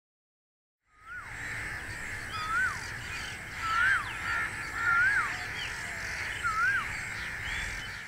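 Outdoor bird ambience starting about a second in: a bird repeats a short whistled note that rises and then drops, about five or six times. Underneath runs a steady hiss of background birds and insects with a faint high thin tone.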